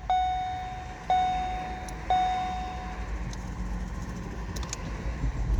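Ford Escape dashboard warning chime dinging three times, about a second apart, each ding fading, with the ignition switched on. From about three seconds in, a low steady engine rumble comes in and grows louder near the end as the newly keyed car starts.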